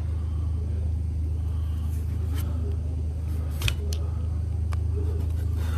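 A small screwdriver prying at the seal of a radial ball bearing in a mower spindle housing, making a few light clicks. A steady low hum runs underneath.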